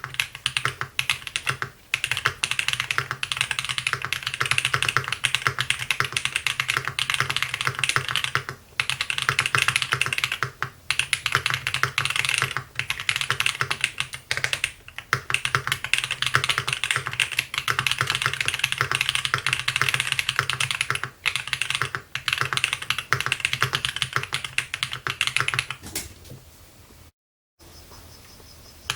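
Fast, continuous typing on a MODE 80 mechanical keyboard with lubed Polia Polar Panda tactile switches on an FR4 plate with plate foam and DCP keycaps: a dense run of key clacks with a few brief pauses, stopping about 26 seconds in.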